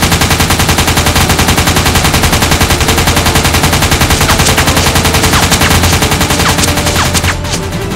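Machine-gun fire: one long, rapid, unbroken burst of evenly spaced shots that stops abruptly about seven seconds in.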